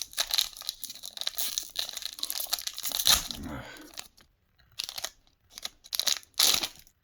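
Trading cards and their crinkly foil pack wrapper being handled: a run of crinkling and rustling, then a few short separate rustles near the end before it stops.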